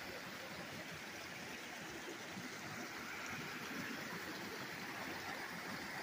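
Small mountain creek running steadily over rocks, a continuous rushing and burbling of shallow water.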